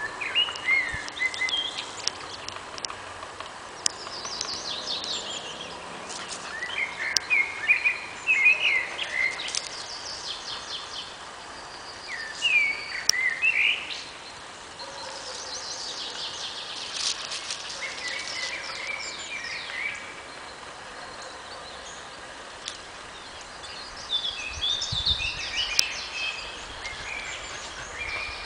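Several songbirds singing short, repeated song phrases in bursts, with pauses between them, over a steady background hiss.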